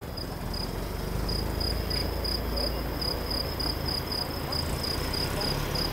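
A cricket chirping in a steady, even rhythm of about three high chirps a second, over a low steady rumble.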